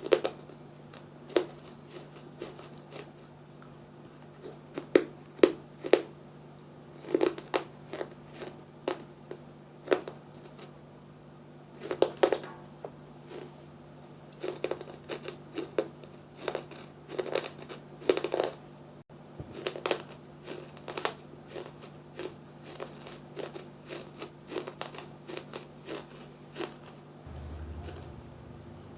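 A small baked-clay diya being bitten and crunched up close: irregular sharp cracks and crunches, some in quick clusters, over a faint steady hum.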